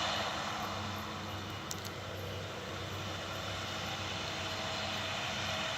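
Farm machinery working in the field, a steady engine drone with a held whine.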